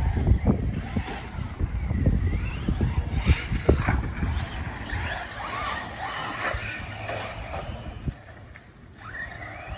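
Radio-controlled car driving on a dirt track, its motor whining up and down, with several sharp knocks from bumps and landings. The sound drops away about eight seconds in.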